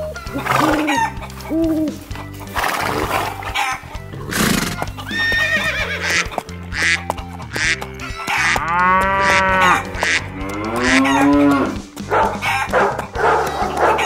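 Background music with farm animal sound effects laid over it: several separate animal calls, the longest one about two thirds of the way through.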